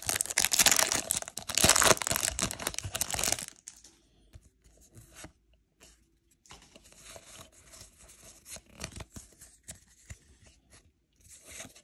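Foil wrapper of a Pokémon trading-card booster pack being torn open, with loud crinkling and tearing for about three and a half seconds. After that come only faint rustles and light clicks as the cards are handled.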